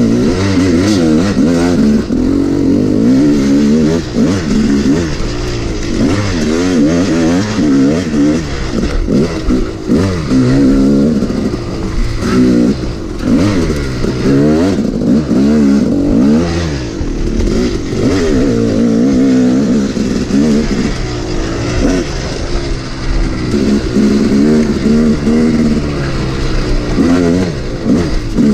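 Yamaha YZ250 two-stroke dirt bike engine ridden hard, its pitch rising and falling every second or two as the throttle is opened and chopped, with some rattling from the bike over rough ground.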